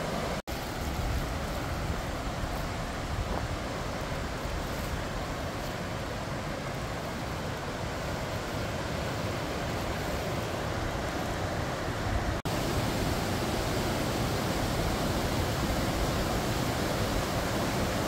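Rushing water of a rocky mountain river's rapids, a steady hiss. It cuts out for an instant twice, just under a second in and about twelve seconds in, and is a little louder after the second break.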